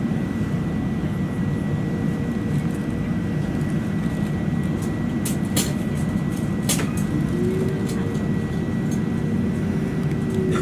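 Steady cabin noise inside an Airbus A380 in flight: an even low roar of airflow and engines with a thin high tone. A few sharp clicks come in the middle, and a steady hum joins about seven seconds in.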